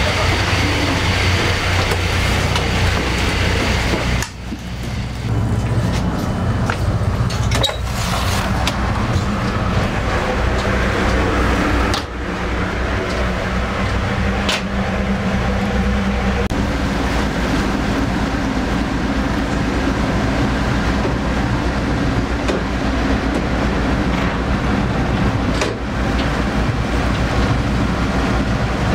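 Passenger ferry's diesel engine running steadily under way, a loud low hum with rushing noise over it; the engine note shifts about halfway through.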